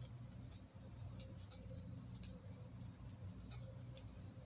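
Faint scattered ticks and scratches of a paint marker tip working over a small horse figurine, over a steady low room hum.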